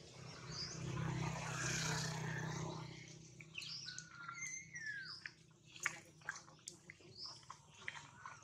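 Outdoor ambience with short, high chirping calls scattered throughout. For a couple of seconds near the start a rushing noise with a steady low hum rises and fades, and in the second half a string of sharp clicks and taps comes irregularly.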